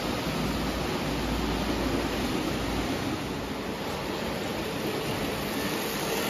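Lionel O gauge steam locomotive and its cars running on three-rail tubular track: a steady rolling noise of the electric motor and metal wheels on the rails.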